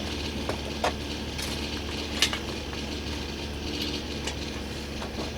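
Scattered clicks and clinks of metal tools being handled, over a steady low hum; the grinder is not yet running.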